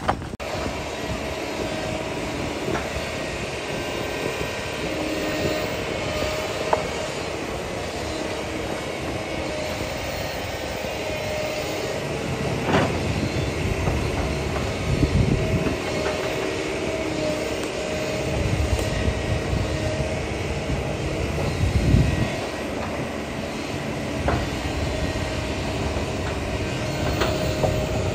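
Kobelco SK200 hydraulic excavator's diesel engine running steadily, with several low, heavy thuds and clatter in the second half as its bucket drops and shoves cardboard boxes of frozen pork into the pit.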